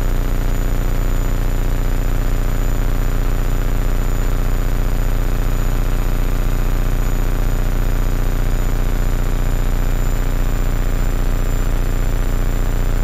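Hummingbird kit helicopter's engine and main rotor running steadily under climb power during liftoff and departure, heard from inside the cockpit: a steady low drone with a fast, even beat, with a thin high whine over it.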